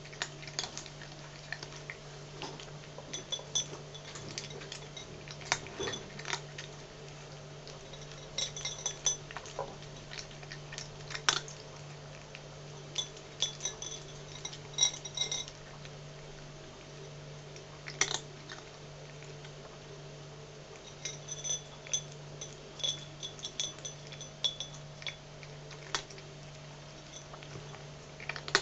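A domestic cat crunching dry kibble from a small plate, in loud, irregular bites that sound like bones being chewed, with sharp clinks against the plate in clusters.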